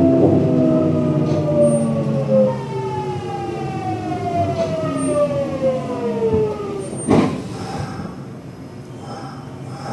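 Hitachi GTO-VVVF traction inverter of a Kintetsu 1026 series train whining in several tones that fall steadily in pitch as the train slows under braking for a station. About seven seconds in there is a sharp clunk, after which only quieter running noise remains.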